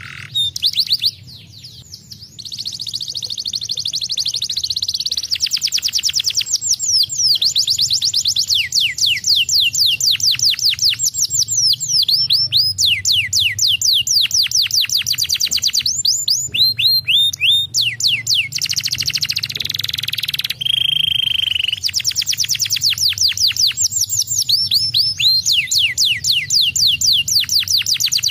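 Domestic canary singing a long, loud song of fast trills: rapid runs of repeated downward-sweeping high notes in changing phrases. There is a brief break about a second in and a held whistled note around two-thirds of the way through, over a faint low hum.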